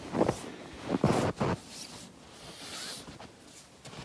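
Footsteps crunching in fresh snow, a few steps in the first second and a half, then fainter rustling of snow and clothing.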